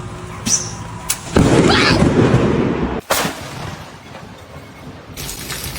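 A loud boom of thunder that starts suddenly about a second and a half in and breaks off abruptly about halfway through. A quieter noisy rumble follows.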